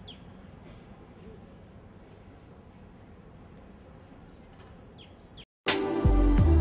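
Outdoor background noise with birds chirping in short, high chirps that come in quick runs of two or three. About five and a half seconds in, it cuts off and loud music with a heavy bass beat starts.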